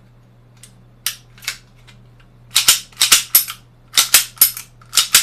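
Sharp metallic clacks of a Taurus PT99 (Beretta 92-style) airsoft gas pistol's slide being racked back and let fly forward by hand. Two single clacks are followed, from about halfway on, by a quick run of paired clacks, as the freshly reassembled gun is function-checked.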